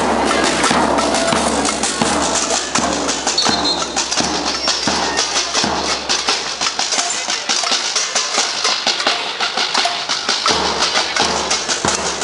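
Protest crowd banging pots and pans in a cacerolazo: a dense, continuous clatter of sharp metal strikes, with low thuds beating underneath.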